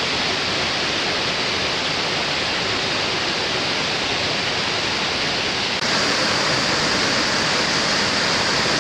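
A 90-foot waterfall rushing, a steady, loud wash of falling water. About six seconds in the sound turns abruptly louder and brighter.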